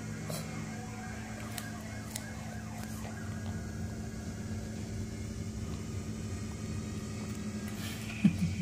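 A steady low electrical hum with a few faint clicks early on, and one short, louder low sound near the end.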